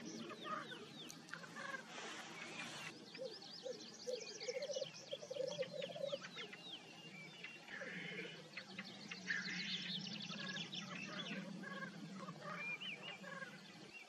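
Male black grouse at a spring lek: a continuous low bubbling coo (rookooing) that swells in the second half, with hissing calls breaking in and many quick high falling chirps over the top.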